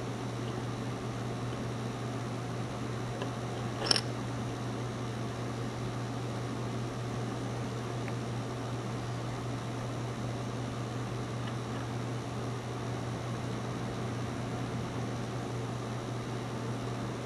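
Steady low hum and hiss of room noise, with one sharp click about four seconds in.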